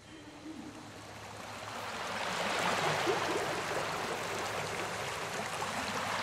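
A steady rushing noise like flowing water that fades in over the first two seconds or so and then holds level, with a faint low hum underneath.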